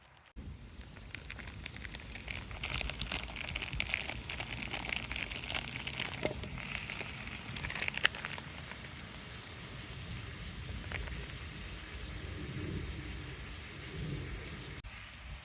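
Food cooking over a campfire: a dense crackling and sizzling made of many small pops, busiest in the first half, with one sharper pop about halfway through.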